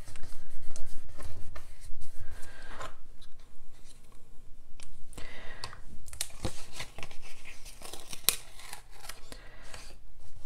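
Paper being handled and rubbed flat on a tabletop, then a paper strip stuck down with double-sided tape being peeled off a card. The noise is irregular rustling, crackling and tearing, with a few sharp clicks later on.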